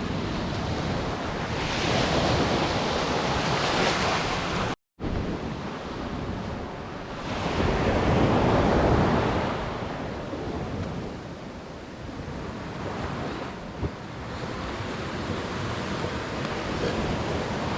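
Sea waves breaking and washing up the shore, swelling and fading every few seconds, with wind buffeting the microphone. The sound drops out completely for a split second just before five seconds in.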